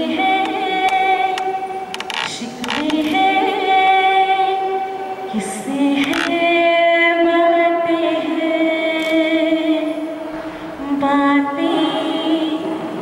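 A woman singing solo into a handheld microphone, holding long notes.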